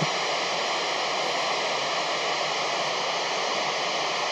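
Steady FM radio static from a handheld 2-meter receiver with its squelch open and no signal coming in, between the space station's voice transmissions.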